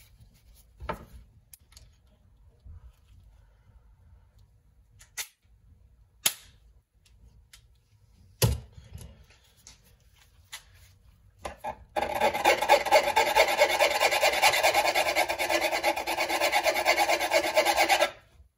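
A hand file rasping quickly back and forth on a short piece of steel bicycle spoke being shaped into a retaining pin, for about six seconds in the second half. Before that, a few light clicks and knocks.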